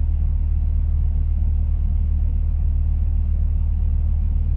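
Steady low rumble of a semi-truck's diesel engine running, heard from inside the truck's cab.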